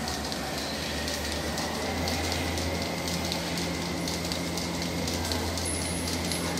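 Rotary milking parlour machinery running: a steady mechanical hum and hiss with a thin, high, constant whine, and a second low hum coming in about halfway through.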